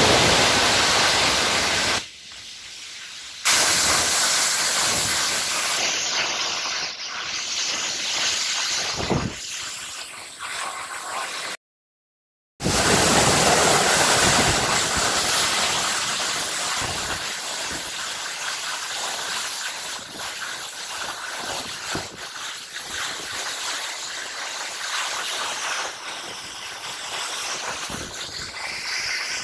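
Giessbach Falls waterfall cascading over rocks: a steady, loud rush of falling water. The level drops abruptly for a moment about two seconds in, and the sound cuts out completely for about a second near twelve seconds in before the rush resumes.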